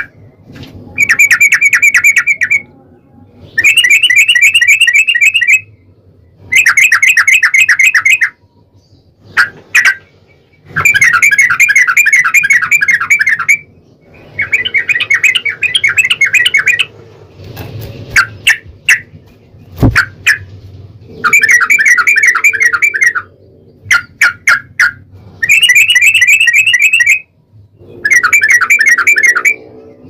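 Yellow-vented bulbul (trucukan) singing its fast chattering 'ropel' song: runs of rapid repeated notes lasting two to three seconds each, about eight runs, separated by short clipped chirps. A single low thump sounds about two-thirds through.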